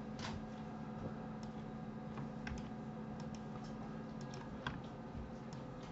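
Scattered, light clicks of a computer keyboard and mouse being worked, over a faint steady low hum.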